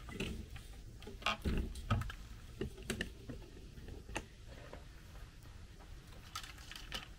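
Sparse light clicks and taps from handling a digital refrigerant manifold gauge and pressing its keypad buttons.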